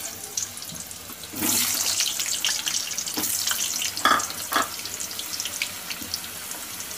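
Potato wedges deep-frying in hot oil in a kadhai: a dense, steady sizzle and crackle. It grows louder about a second and a half in, as more pieces are in the oil, with a few sharper crackles around the middle.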